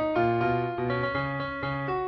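Background piano music: a steady run of notes, about four a second, over low bass notes.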